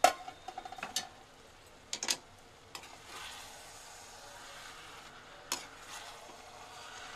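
A sharp metal clank with a brief ringing at the start, then a steel spatula knocking and scraping in a kadhai as wilted spinach and moong dal are stirred, with a steady sizzle from about three seconds in.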